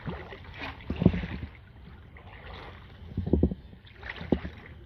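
Kayak paddle strokes in calm creek water: three splashing dips, about a second in and twice more in the second half, over a steady lapping of water.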